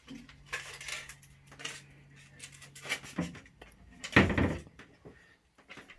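Rummaging: hard household objects knocking and clinking, with one louder clatter about four seconds in. A low hum runs underneath and stops a little after three seconds.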